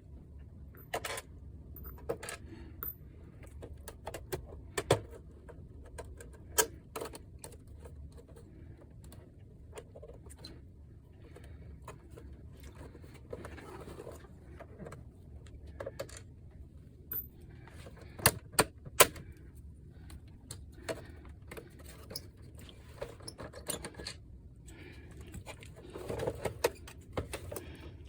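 Irregular clicks, taps and light knocks of hands handling the plastic casing and parts of a PlayStation 5 during disassembly, with three sharp loud clicks close together about two thirds of the way in and a short stretch of scraping or rustling near the end.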